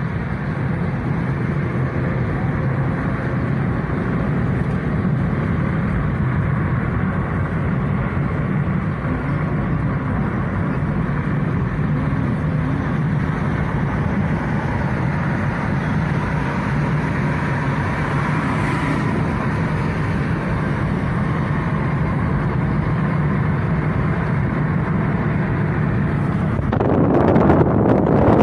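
Steady road and engine rumble of a car driving along, heard inside its cabin. Near the end a louder rush of wind noise comes in suddenly.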